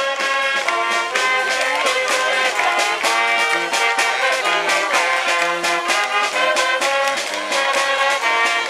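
Brass-led music with a steady swing beat, trumpets and trombones playing.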